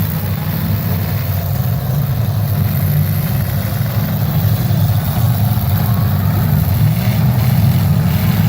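Engines of demolition derby cars running, a steady loud low rumble.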